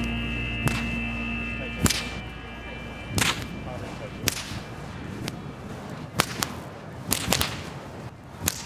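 Fire whip, a bullwhip with a burning wick on its tip, cracked over and over: about ten sharp cracks at uneven intervals, some coming in quick pairs.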